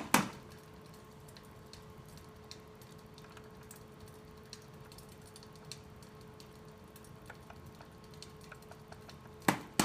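Hand-spun bicycle wheel turning, with faint irregular ticks over a steady hum. There is a sharp knock at the start and two more near the end as the wheel is handled.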